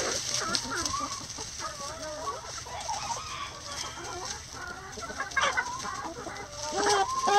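A flock of hens clucking, with a steady run of short, wavering calls and louder calls near the end.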